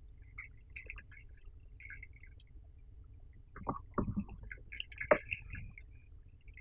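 Faint water splashes and light ticks beside a kayak as a hooked fish thrashes at the surface, with a few soft knocks a little past halfway as the landing net is brought out.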